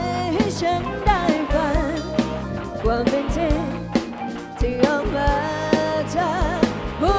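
Live pop-rock band: a woman sings a melody with vibrato over electric guitars, keyboard and a drum kit keeping a steady beat.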